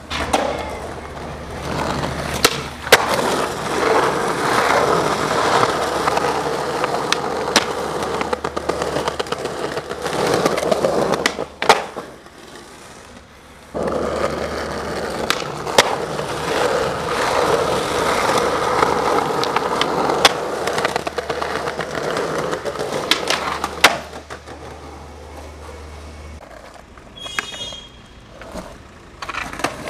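Skateboard wheels rolling over concrete paving slabs, broken by sharp clacks of the board every few seconds. The rolling drops away twice, about twelve seconds in and again near the end.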